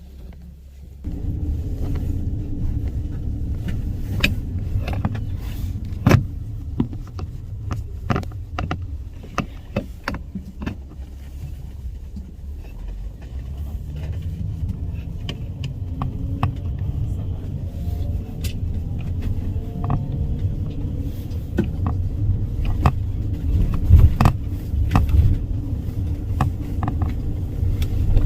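A road vehicle driving: a steady low engine and road rumble that starts about a second in, with scattered clicks and rattles, and a faint engine tone that rises slowly through the middle as it speeds up.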